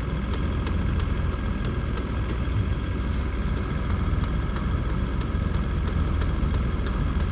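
A boat motor running steadily with a low hum.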